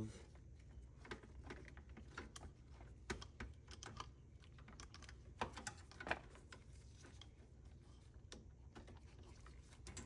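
Faint, irregular small clicks and taps from gloved hands handling a refrigerator water inlet valve and its plastic wire connectors, with a few sharper clicks around the middle. A low steady hum runs underneath.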